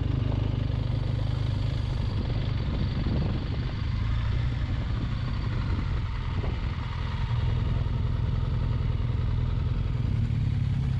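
BMW R1200GS boxer-twin engine running steadily as the motorcycle rides slowly along a gravel trail. An even hiss of wind and tyre noise runs under it.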